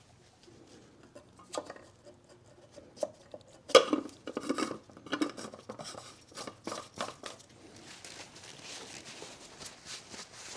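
Oil filter housing cap with its new cartridge being handled and threaded back into the engine by hand: scattered sharp clicks and knocks, a busy clatter of them about halfway through, then a faint steady rasping.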